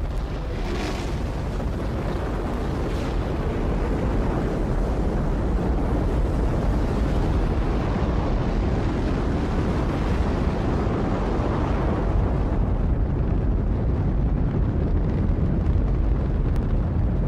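Space Shuttle at liftoff: the continuous roar of its main engines and solid rocket boosters, a heavy low rumble that grows a little louder over the first few seconds and then holds steady.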